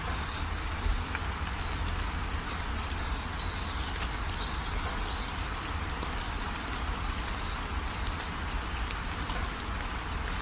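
Steady rain falling, with birds chirping high and thin over the hiss and scattered drips.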